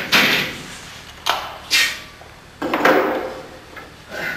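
Push broom sweeping a hard floor: a series of short swishing strokes, about five, each starting sharply and fading away.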